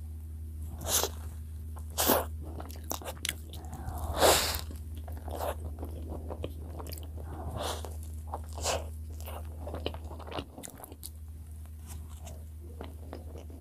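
A person biting into and chewing soft cream-filled bread, with a few sharper bites about one, two and four seconds in and quieter chewing after.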